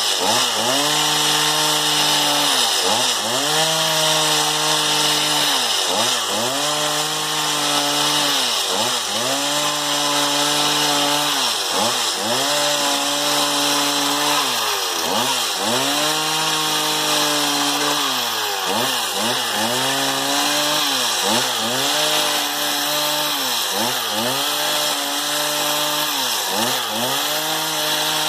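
Stihl MS 260 two-stroke chainsaw running at full throttle. Its engine pitch sags and recovers every second or two, the bogging of a saw being loaded in repeated cuts through wood.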